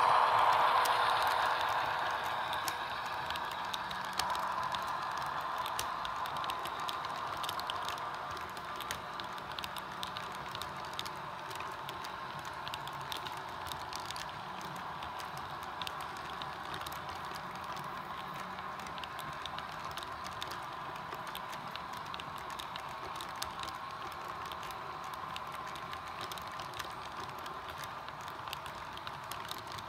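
Model freight train rolling slowly past on the layout track, its cars' small wheels ticking and clicking over the rail joints. A steady motor hum fades over the first several seconds as the locomotive pulls away.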